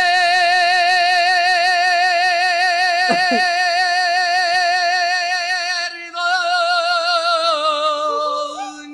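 Male mariachi tenor holding one long high note with a wide vibrato for about six seconds, then singing on into the next phrase, stepping down in pitch near the end.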